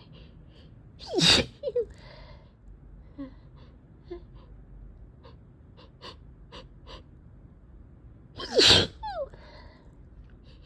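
A person sneezing twice, about seven seconds apart, each sneeze a sharp burst whose pitch drops, with small clicks and breaths between them: allergic sneezing from a cat allergy.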